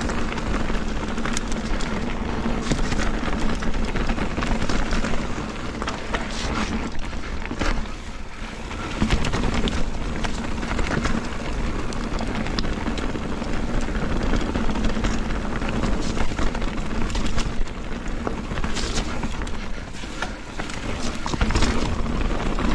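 Mountain bike riding down a rooty, muddy trail: continuous rolling and rushing noise, broken by frequent short clatters and knocks as the bike goes over roots.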